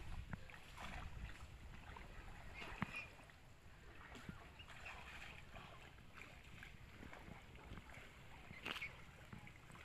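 Faint lapping of shallow water with a few small clicks, the sharpest about three seconds in and another near the end.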